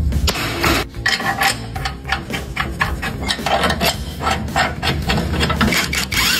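Rapid, irregular metallic knocks and clatter from tools working on a car's chassis parts, with music underneath.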